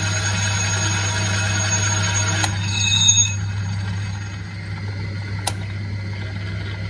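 Atlas metal lathe running while its tool takes light cuts in an aluminium brake-disc adapter, a few thou at a time. About three seconds in, the cutting noise gives way to a brief high-pitched ring, then the lathe's steady hum continues, with a single click near the end.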